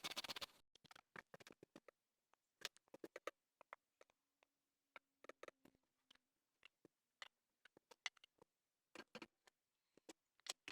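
Scattered light clicks and taps in a woodworking shop, as of hand tools and wood parts being handled, coming at irregular intervals. A dense run of rapid scraping strokes cuts off about half a second in.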